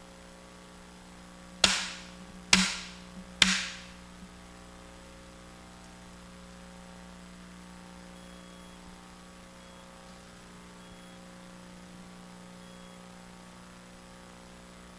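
Three sharp wooden clacks from a bamboo stick, evenly spaced less than a second apart, each with a short ringing tail: the traditional three strikes that signal the start of seated meditation. A faint steady hum follows.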